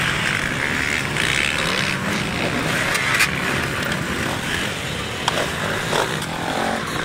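Several off-road dirt bike engines running as the bikes ride past over the dirt track.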